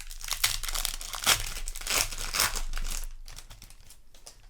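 Plastic-foil trading-card booster pack wrapper crinkling and being torn open, a dense rapid crackle for about three seconds that then dies down.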